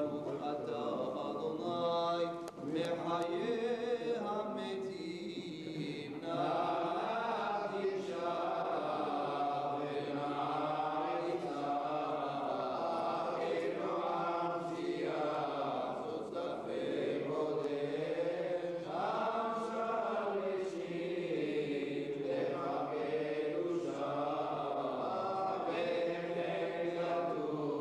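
Hebrew liturgical chanting by men's voices: a continuous sung prayer melody that rises and falls in pitch.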